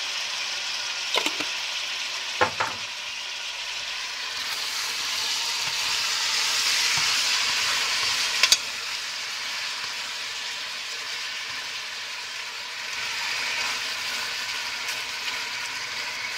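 Pork tenderloin pieces sizzling steadily as they brown in hot fat in a stainless steel pot, being stirred, with a few sharp clicks along the way.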